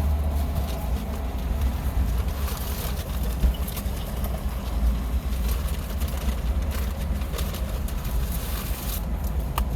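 Steady low rumble inside a car cabin, with scattered light clicks and rustles from food and wrappers being handled.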